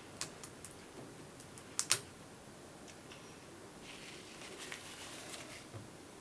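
Small sharp clicks and taps of laptop parts being handled during a screen replacement, the loudest a quick pair about two seconds in. Light scraping and rustling follow a few seconds later.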